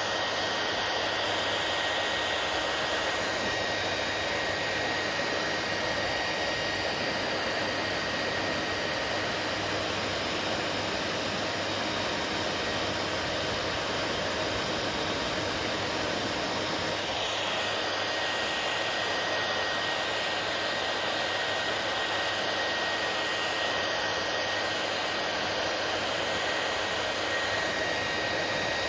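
Hair dryer running steadily: a continuous blowing noise with a faint steady whine above it.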